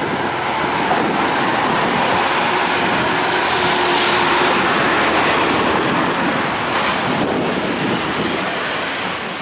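Street traffic passing close by, a songthaew bus and a motor scooter among it; the engine and tyre noise swells to its loudest about four seconds in and eases off near the end.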